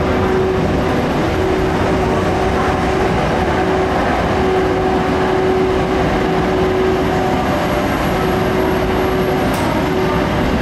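Twilight Express sleeper train hauled by an EF81 electric locomotive rolling slowly past along the platform: a steady rumble of running gear with a constant hum and no break in the sound.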